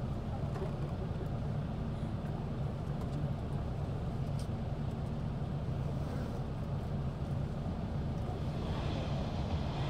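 A vehicle engine running steadily, a constant low hum with no change in level.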